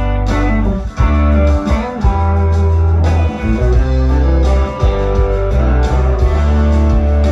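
Live band music led by an electric guitar, with deep, held bass notes underneath that change every second or so.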